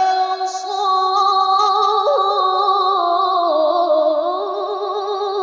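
A single voice reciting the Qur'an in melodic tilawah style, holding one long, ornamented, drawn-out note that wavers in vibrato, turns up about two seconds in and dips lower past the middle.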